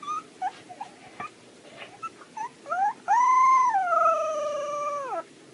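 Husky puppy giving a few faint, short squeaky whimpers, then a little rising yelp and one long howl of about two seconds that slides slowly down in pitch before breaking off near the end.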